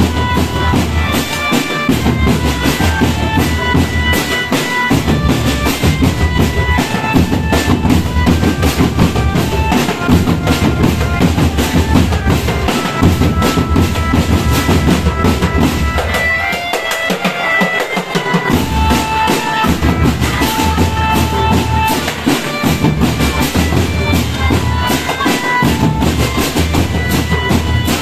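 Marching drum band playing: bass drums and snare drums beating a steady rhythm under a melody of held notes. About two thirds of the way through the drums stop for a moment while the melody carries on, then come back in.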